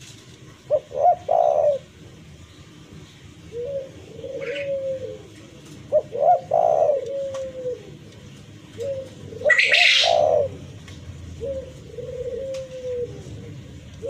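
Spotted dove cooing repeatedly: three loud phrases, each a couple of quick notes and a drawn-out coo, with softer falling coos between them. A short noisy burst comes with the third loud phrase.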